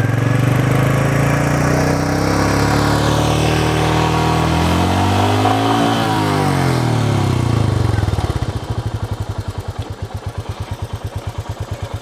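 Royal Enfield Meteor 350's single-cylinder engine being revved, its pitch rising for about six seconds and then falling. About eight and a half seconds in it drops back to a steady idle with an even, rapid thump.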